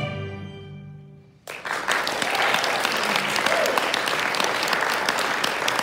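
The song's accompaniment holds its final chord and fades away. About a second and a half in, audience applause breaks out and goes on steadily.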